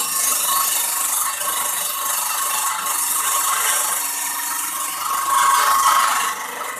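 Homemade table saw driven by a washing-machine motor, its blade running and cutting wood: a steady whine with a rasping, grinding noise over it, loudest about five seconds in.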